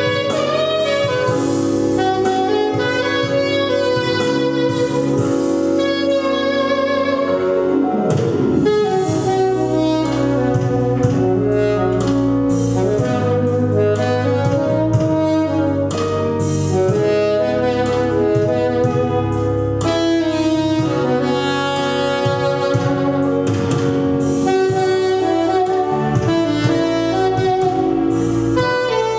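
Jazz saxophone playing a melody over an accompaniment with a steady bass line.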